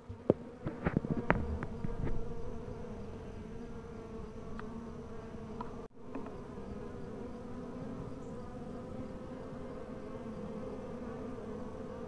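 Honeybee colony humming steadily on new comb inside a Warré hive. A few knocks and taps come in the first two seconds, and the hum briefly cuts out about halfway.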